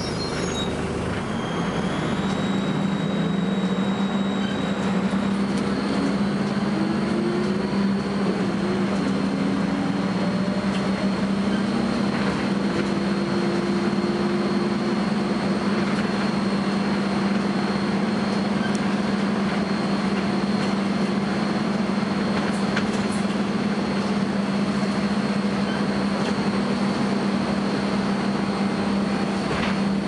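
Volvo B10BLE single-deck bus heard from inside the saloon while driving: a steady low engine and drivetrain drone, with a thin, steady high-pitched whine above it that sets in a few seconds in and holds, the strange noise this bus makes.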